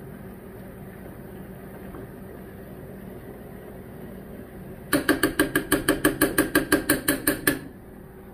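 A metal spoon clanking rapidly against a cooking pot, a quick even run of about seven ringing strikes a second for under three seconds, starting about halfway through. A steady low hum runs underneath.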